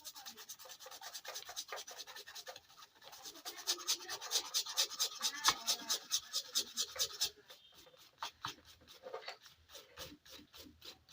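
Rapid back-and-forth scrubbing strokes, about six a second, on a keyboard circuit board being cleaned of excess paste with petrol. The strokes are loudest in the middle and turn softer and more scattered after about seven seconds in.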